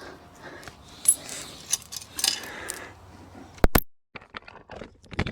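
Small tools and parts being handled: light metallic clicks, taps and rustling, with one sharp click about three and a half seconds in.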